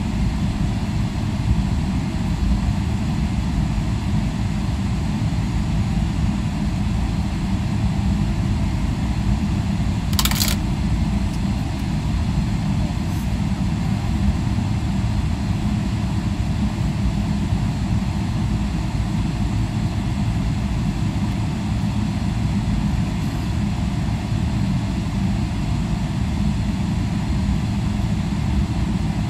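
Steady low rumble of engine and air noise heard inside the cabin of a Boeing 777-300ER as it taxis, its GE90 engines at low thrust. A brief hiss about ten seconds in.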